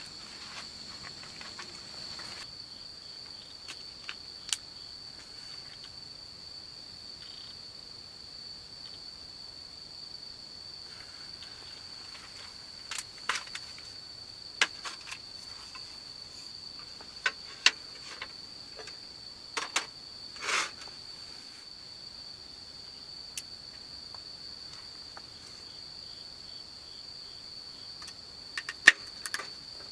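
Crickets chirring steadily in a high, unbroken drone, with scattered sharp clicks and taps, the loudest near the end.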